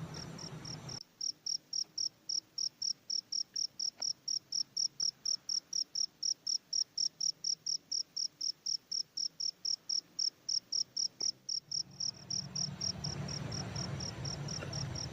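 A cricket chirping in a steady, even rhythm of about three to four high chirps a second. About twelve seconds in, a low rumble of background noise comes back in underneath.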